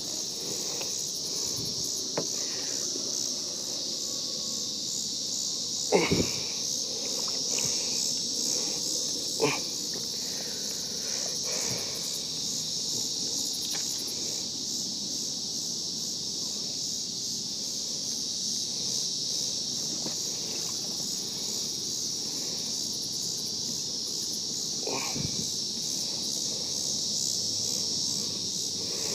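Steady, high-pitched chorus of insects with a fast pulsing trill, broken by a few short knocks, the loudest about six seconds in.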